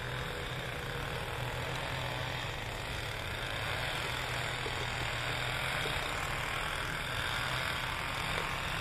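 Steady low hum of an idling engine under a constant rushing noise.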